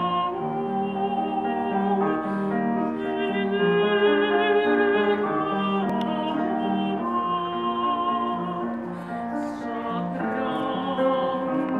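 A woman singing in classical operatic style, her long held notes wavering with vibrato, accompanied by a grand piano playing repeated chords beneath her.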